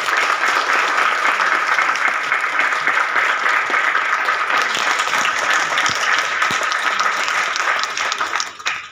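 A crowd applauding in a theatre: dense, steady clapping that cuts off abruptly near the end.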